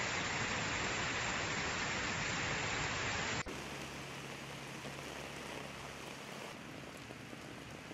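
Muddy floodwater rushing down a stream channel, a loud steady roar of water; about three and a half seconds in it cuts to heavy rain falling on a street, a quieter steady hiss with a faint low hum under it for a few seconds.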